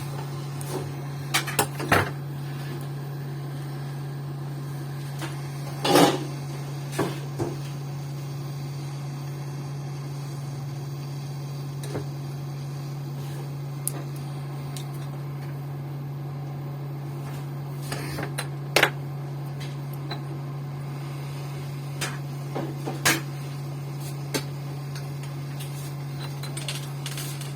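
Scattered small clicks, taps and knocks of tools and parts being handled on a workbench during a tablet SSD replacement, over a steady low hum.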